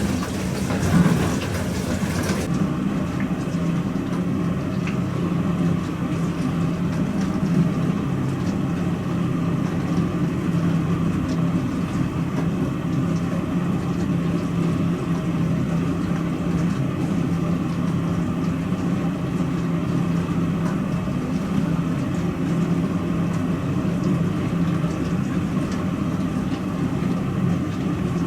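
Pro Action PRSLG96W slimline dishwasher running, its pump giving a steady hum. A hissing, rain-like water noise stops suddenly about two seconds in, and the hum carries on alone.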